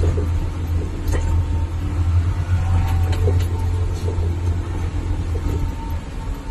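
Steady low engine drone and road rumble heard from inside a slowly moving vehicle's cab, with a few light clicks and rattles.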